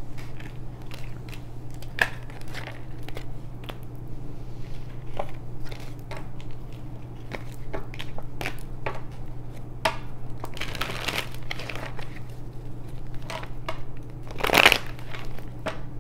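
Tarot cards being handled on a granite countertop: scattered taps and clicks as cards are picked up and slid, a longer rustle about ten seconds in, and a louder brief rustle near the end. A steady low hum runs underneath.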